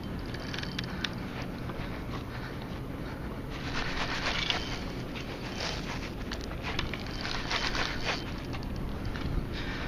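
Fishing reel being cranked in several short bursts of clicking and rattling, reeling in a hooked king salmon on a bent light rod, over a steady background rush.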